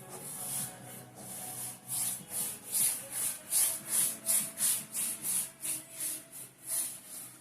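A brush sweeping varnish back and forth over an oil painting's canvas in quick, even strokes, about three a second. The strokes grow louder and more regular from about two seconds in. Faint background music plays underneath.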